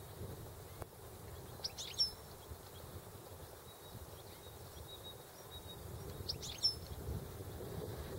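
European goldfinch calling: two short bursts of quick, high chirping notes, about two seconds in and again about six and a half seconds in, over a steady low background rumble.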